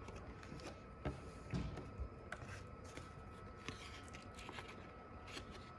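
Faint handling of trading cards: scattered light clicks and short rustles as cards are picked up and flipped over to check the backs.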